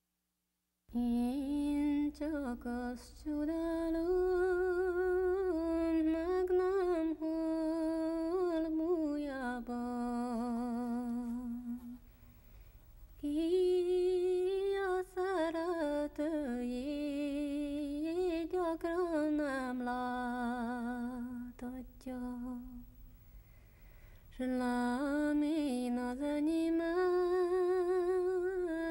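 A solo female voice sings a slow, ornamented Hungarian folk melody with no accompaniment. It is wordless or drawn-out, with long held notes and vibrato, in three phrases broken by short pauses about 12 and 23 seconds in.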